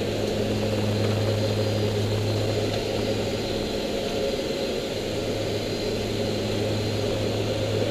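Steady drone of a Dornier 228's twin Garrett TPE331 turboprop engines and propellers heard from inside the cabin in flight: an even low hum under a constant rush of noise.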